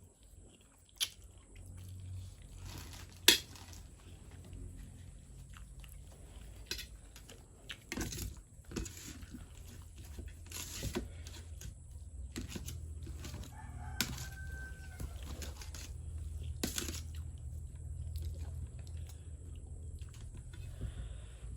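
Eating sounds: mie goreng being eaten, with sharp clicks of cutlery on a plate, the loudest about three seconds in. A rooster crows faintly in the background partway through.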